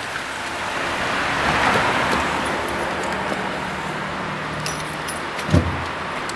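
Mini One convertible's engine running over a steady hiss of street noise, its low hum dying away about five seconds in. A single thump follows as the driver's door is opened.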